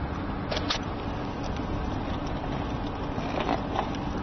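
A few light clicks and knocks as the popcorn vending machine's dispensing door is opened and the filled paper cup is taken out, over a steady low rumbling background.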